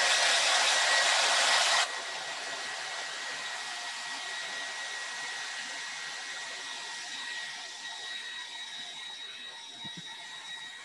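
Handheld hair dryer blowing steadily with a faint whine in it, used to dry a fresh coat of chalk paint. It turns noticeably quieter about two seconds in and stops near the end.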